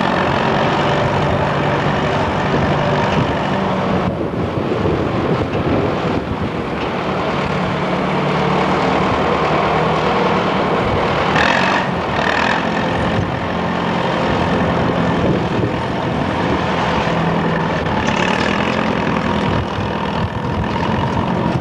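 Motor vehicle engine running steadily, a continuous low hum with road or traffic noise over it.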